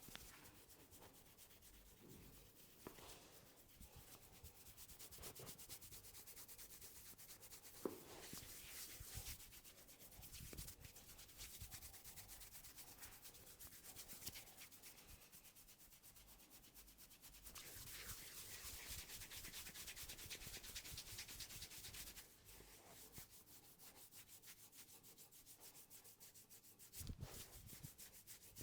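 Faint close-up rubbing and scratching of fingers through hair and over the scalp during a head massage, a continuous rasping of quick small strokes, with a single sharp click about eight seconds in.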